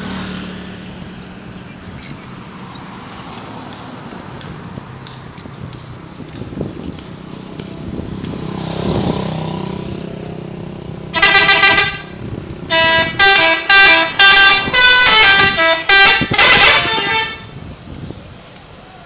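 An Indonesian bus's 'telolet' musical air horn, a set of tuned horns sounding a short tune of loud toots that step between different pitches, about half a dozen blasts over some six seconds. Before it comes steady road and engine noise, with a vehicle passing.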